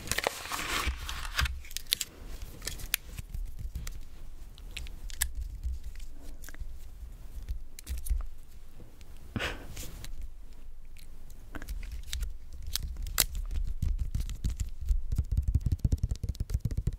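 Plastic Nanaco pudding cups handled and tapped close to the microphone: scattered sharp clicks and a few longer scrapes over a low handling rumble.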